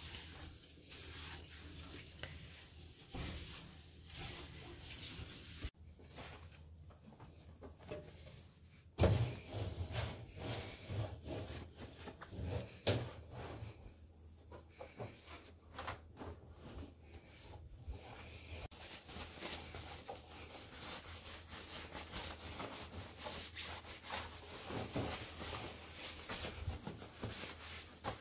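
Cloth wiping and scrubbing over an electric stove's coil burners and a stainless-steel range hood, in many short rubbing strokes. There is a louder bump about nine seconds in.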